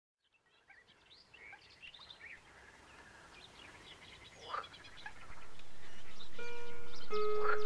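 Birds chirping and singing as the sound fades in from silence, then guitar music begins about six seconds in with plucked, held notes and grows louder.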